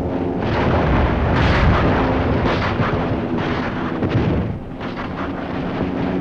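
Explosions and heavy gunfire on a wartime newsreel soundtrack: a dense, rumbling run of blasts that swell roughly once a second.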